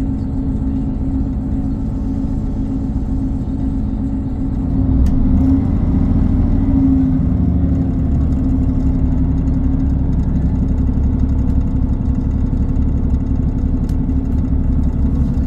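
Diesel multiple unit's underfloor engine heard from inside the carriage, running steadily, then louder from about five seconds in with its note rising as it works harder, before settling into a steady drone.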